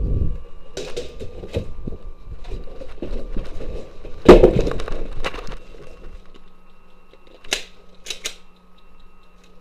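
Footsteps with scattered knocks, crunches and clicks of a person moving through a debris-strewn room. A loud knock comes about four seconds in, and a few sharp clicks come near the end.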